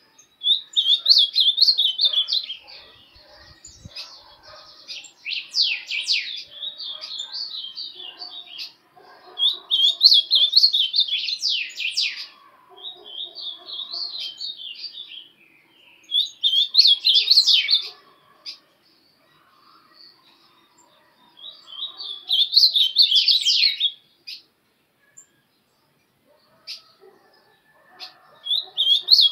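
Caged ultramarine grosbeak (azulão) singing: about seven warbling, whistled song phrases, each two or three seconds long, separated by short pauses, with a longer pause near the end.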